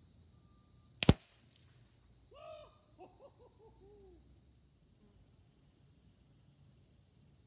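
A single sharp shot from a Hatsan Nova QE .25-calibre PCP air rifle about a second in, with a faint tick half a second later. Then a bird calls a quick falling series of short notes.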